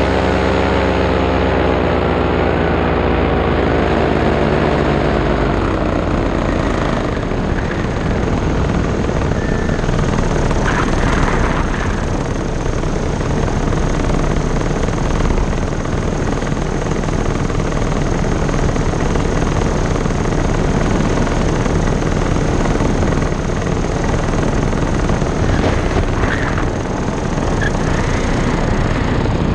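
Paramotor engine and propeller running, its pitch falling over the first few seconds as it is throttled back; then a steady rushing of air in which no clear engine tone stands out.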